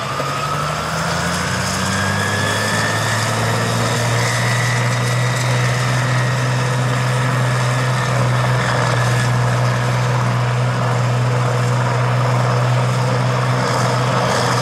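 John Deere pulling tractor's turbocharged diesel engine running flat out at a steady high speed while the tractor stands still. A high whine climbs over the first couple of seconds and then holds, the sign of a diesel runaway: the engine racing out of control, over-fuelled by oversized injectors on a stock turbo.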